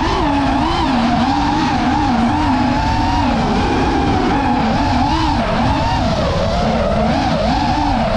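FPV quadcopter's motors and propellers whining, their pitch constantly rising and falling with the throttle, over a low rumble of wind on the microphone.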